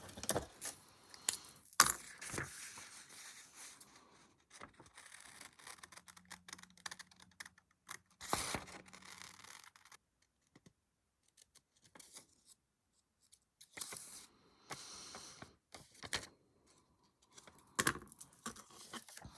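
Thin origami paper being cut out and handled: scattered snips, crinkles and small clicks, stopping and starting with short pauses.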